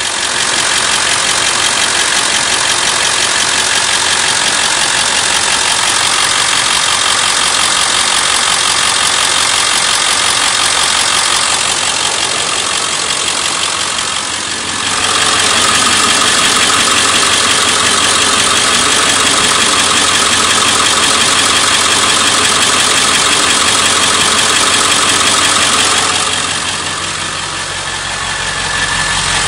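Ford 7.3 Power Stroke turbo-diesel V8 idling steadily, with the ticking sound that the owner is chasing. The sound dips in loudness twice.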